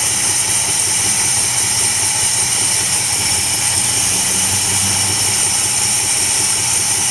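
Plymouth Suburban wagon's engine running steadily at idle. It has a misfire that the owner suspects comes from an intake manifold vacuum leak or fuel starvation.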